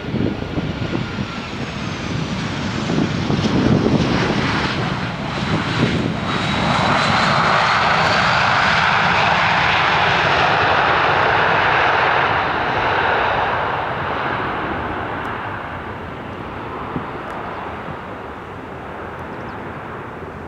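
A Boeing 737-700's CFM56-7B jet engines on the landing rollout. A rush at first, then about six seconds in the engines spool up loudly with a rising whine, as reverse thrust is applied. They hold for several seconds, then fade away as the airliner slows and rolls off into the distance.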